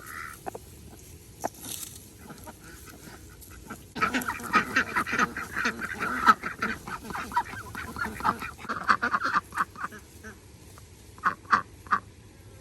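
Farm poultry calling: about four seconds in, a dense run of rapid short calls lasting several seconds, followed by three separate calls near the end.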